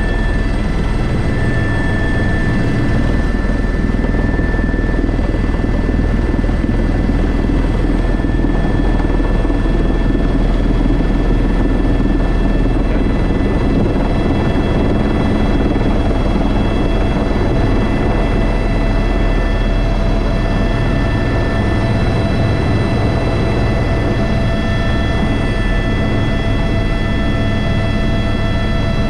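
Airbus H125 (AS350 B3) helicopter in flight: its single turboshaft engine and main rotor running steadily, a low rotor drone with a steady high turbine whine over it.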